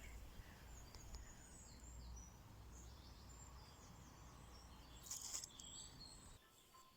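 Faint garden songbirds chirping and twittering, short high calls scattered through, over a low background hum. A short rustling noise comes about five seconds in, and the sound cuts out shortly before the end.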